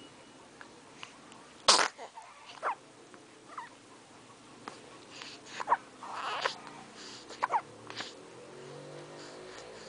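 A single sharp sneeze about two seconds in, followed by several short squeaky cries and snuffly breaths.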